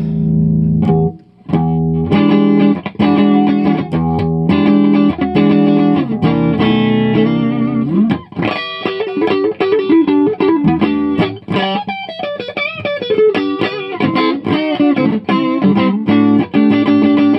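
Electric guitar on the neck pickup played through a modified Filmosound amplifier's 'super lead' (Bassman-style) channel: chords with a short break about a second in, then from about halfway a single-note lead with string bends.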